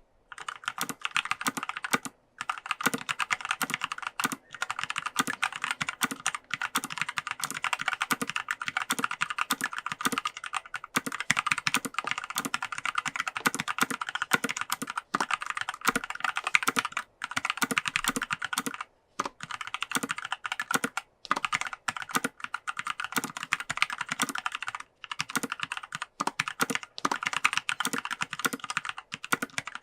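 Fast, continuous typing on a mechanical keyboard with Kailh Pro Heavy Berry linear switches, an aluminium plate, plastic case and PBT keycaps. The keystrokes run in a dense stream, broken by a few brief pauses.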